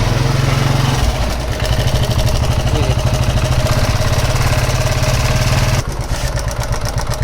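TVS XL moped's four-stroke engine running with a rapid, even rattle, a little quieter for the last second or so. The mechanic traces the noise to a very loose timing chain, with loose tappets as well.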